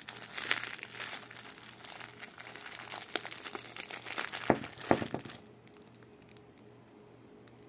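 Clear plastic bag crinkling and rustling as hands work it open, with two sharp cracks about four and a half seconds in; the crinkling stops after about five seconds.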